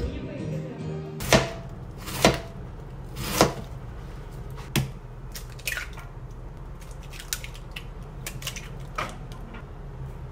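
Eggs knocked against the rim of a stainless steel mixing bowl and cracked open: several sharp knocks with a short metallic ring, the three loudest close together, then fainter clicks as more eggs go in. Music plays briefly at the start.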